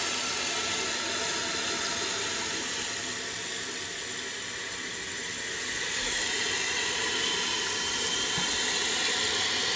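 New Fluidmaster toilet fill valve running open, water hissing steadily into the tank as it refills. The float has not yet risen to the shut-off level.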